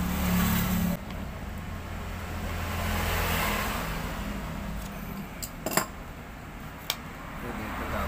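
A motor vehicle engine running, louder about three seconds in and then fading, with two sharp clicks of hand tools about two-thirds of the way through.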